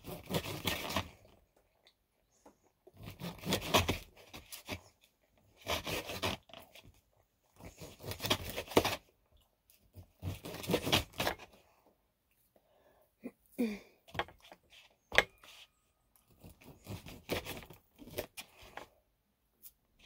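Kitchen knife sawing through a farmer sausage and scraping on the dish beneath: rasping strokes about a second long, coming every two seconds or so, with a few sharp clicks in a pause in the second half.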